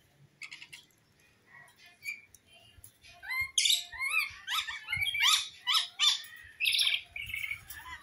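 Rainbow lorikeet calling: a few faint chirps at first, then about three seconds in a run of loud, shrill screeching chatter made of many quick up-and-down calls, easing off near the end.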